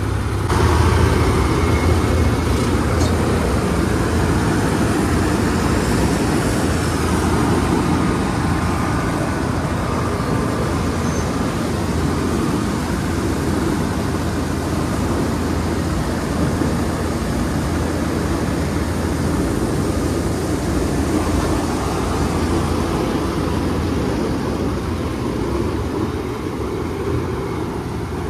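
Heavy diesel farm machinery engine running steadily under load. It gets louder about half a second in and eases slightly near the end.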